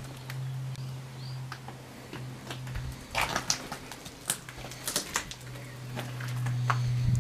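Footsteps and the clatter and crunch of debris on the floor of an abandoned railway carriage: a cluster of sharp clicks and crackles from about three to five seconds in, and a few more near the end, over a low steady hum.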